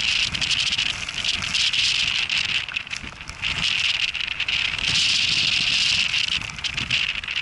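Strong wind and rain on the microphone: a loud hiss with many small crackles that swells and dips in gusts, over a low rumble.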